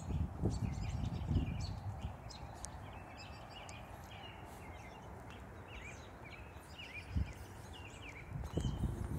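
Birds chirping in many short, repeated, slurred calls over a steady outdoor hiss. Low rumbling thumps come in the first two seconds and again near the end.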